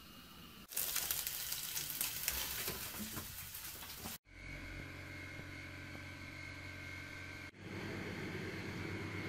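Kitchen sounds in quick cuts: about three seconds of crackling hiss, then the steady hum of an oven running, then a microwave oven running with a steady hum.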